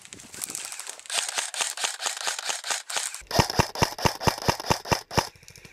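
Airsoft electric rifle firing on full auto: a fast, even string of sharp mechanical clacks. It is fainter for the first three seconds, then louder and heavier from about three seconds in, and stops shortly before the end.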